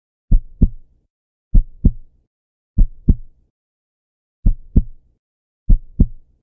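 Heartbeat sound effect: five deep double 'lub-dub' thumps, about one beat every 1.2 seconds, with a slightly longer pause before the fourth.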